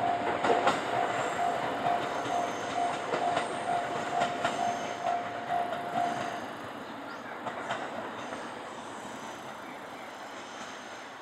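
E501 series electric commuter train pulling out of a station, its wheels clacking over rail joints. A beep repeats about three times a second and stops about six seconds in, after which the train's noise dies away as it draws off.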